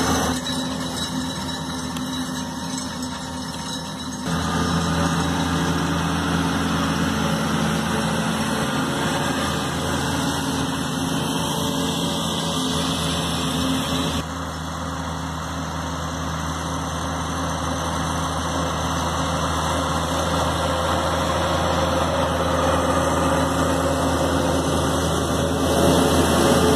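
Case MXM 120 tractor's diesel engine running steadily under load while pulling a slurry tanker and injector across grassland. The sound shifts abruptly in level and tone a few times.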